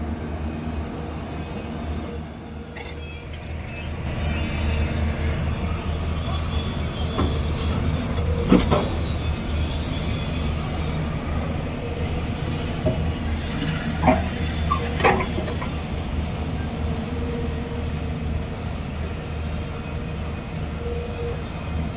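Diesel engines of Hyundai crawler excavators running steadily under load as they dig earth, with a few sharp knocks, about eight seconds in and twice around fourteen to fifteen seconds.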